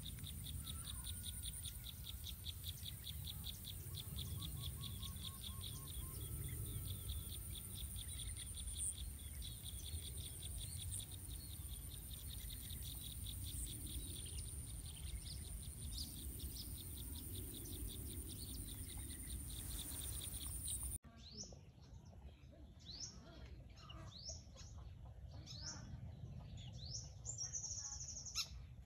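Outdoor ambience: insects keep up a steady high drone and a fast pulsing trill over a low rumble. About two-thirds of the way through the sound cuts abruptly to a quieter stretch with short, repeated bird chirps.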